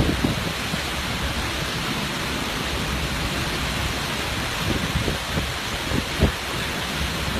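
Hurricane wind and rain: a steady rushing noise, with a few low thumps in the second half.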